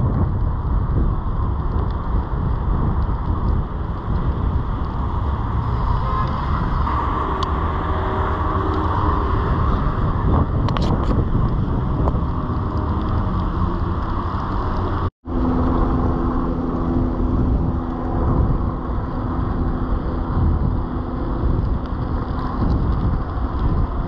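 Steady rumble of wind on the microphone and tyre and road noise from a bicycle riding through city traffic on wet pavement, with cars passing. The sound cuts out for an instant about fifteen seconds in.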